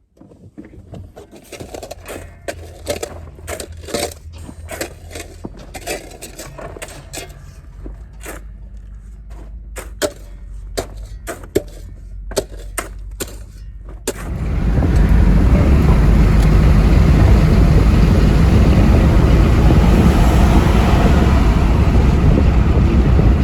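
Irregular knocks and clatters over a low hum, then about fourteen seconds in a loud, steady rushing noise abruptly takes over.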